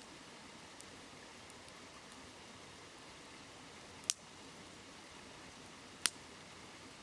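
Wood campfire crackling: a few faint ticks and two sharp pops, about four and six seconds in, over the steady murmur of a shallow river.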